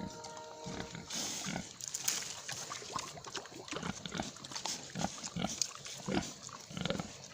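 Domestic pigs grunting, a run of short, irregular grunts.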